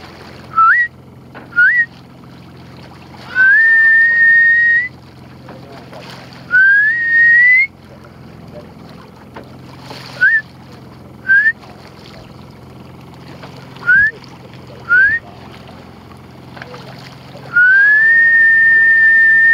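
A person whistling loudly: six short upward chirps and three longer notes that glide up and then hold steady, the last held for about two seconds at the end.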